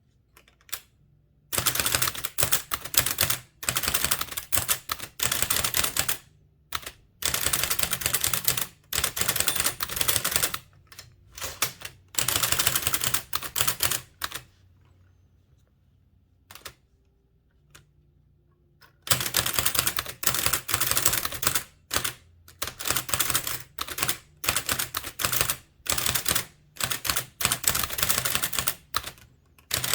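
Blickensderfer type-cylinder typewriter being typed fast: runs of sharp, clacking keystrokes in bursts with short breaks. A pause of several seconds in the middle is broken by a couple of single clicks before the typing picks up again.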